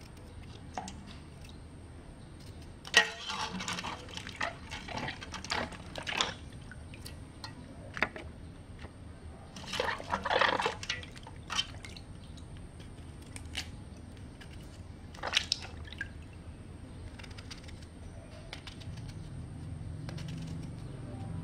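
Fresh vegetables being handled and laid onto a ceramic plate: rustling and light taps in two clusters, about three seconds in and again about ten seconds in, with a few single ticks between.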